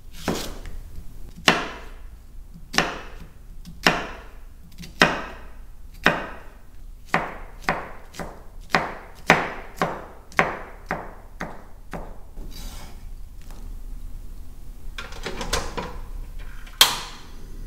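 Kitchen knife chopping on a wooden cutting board. The chops start at about one a second, quicken to about two a second in the middle, then pause for a few seconds. After a few softer knocks, one loud chop lands near the end.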